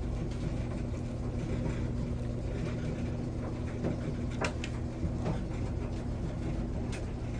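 Steady mechanical hum at a constant pitch, with a couple of light clicks about four and a half and five seconds in.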